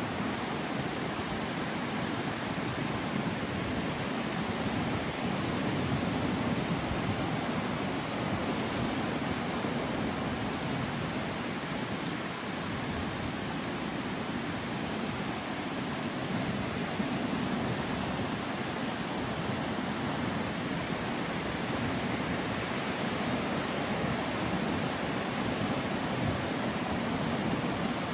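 Steady roar of ocean surf on a beach, rough from a typhoon swell, rising and easing slightly.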